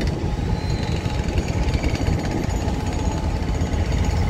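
Wind buffeting the microphone with a rough, irregular rumble, over the sound of an approaching CSX diesel locomotive. A grade-crossing bell rings faintly above it.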